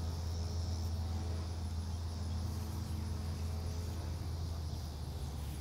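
Outdoor ambience: a steady low hum under a faint, even, high-pitched chirring of insects.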